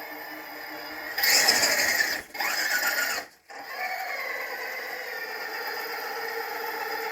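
Holmes Revolver 1000 kV brushless hobby motor on a 6S battery running: two loud bursts of about a second each, a brief cutoff, then steady running with a whine for the rest.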